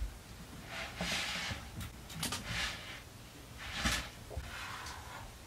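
Faint knocks and rustling of someone walking into the house, in a few short bursts.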